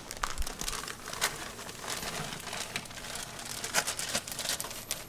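Thin plastic bag crinkling and rustling in irregular short crackles as loess clay powder is shaken out of it into a tub of sulfur powder.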